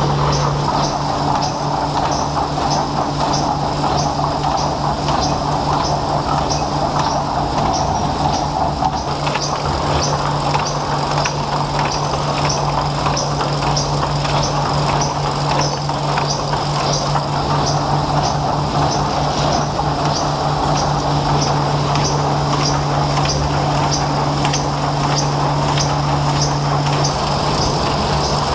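Machinery running steadily with a constant low hum and a light regular ticking a little under twice a second; a higher tone in the hum drops out near the end.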